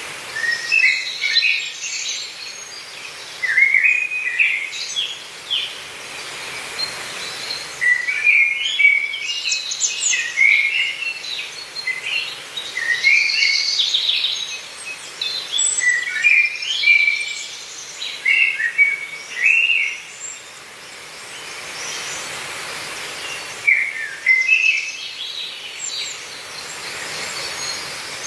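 Songbirds chirping and singing: short, quick phrases and trills in clusters one after another, with a brief lull past the middle, over a faint steady background hiss.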